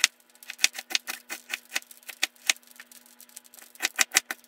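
Kitchen knife chopping an onion on a plastic cutting board: sharp, irregular taps, several a second, with a quicker run near the end.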